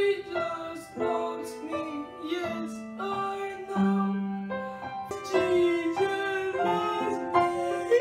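A boy singing a choir song to piano accompaniment, crying as he sings, in held notes that change every second or so.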